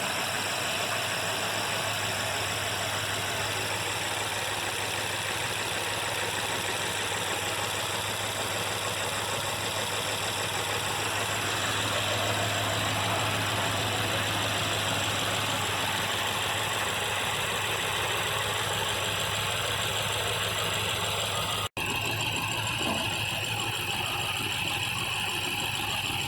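BMW M5's S63 4.4-litre twin-turbo V8 idling steadily. The sound drops out for an instant about 22 seconds in and comes back slightly different.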